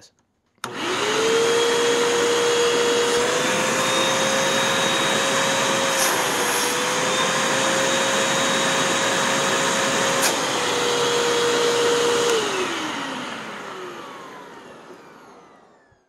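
Hoover upright vacuum's motor switched on and spinning up to a steady whine while drawing suction through its hose, sealed against a vacuum gauge to measure hose suction. Two faint clicks come midway. About twelve seconds in it is switched off and winds down, its pitch falling away.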